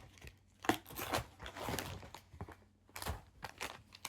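Plastic granola-bar wrappers crinkling and rustling in the hands as packets are handled, with a few light clicks and taps.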